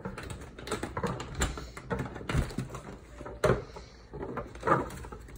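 Irregular clicks and knocks: the clatter of horizontal window blinds being handled, with a sharper knock about three and a half seconds in and another near the end.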